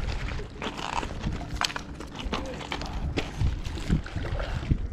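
Hooked asp thrashing and splashing at the water's surface in the shallows, then a landing net scooping through the water, with scattered sharp splashes and knocks.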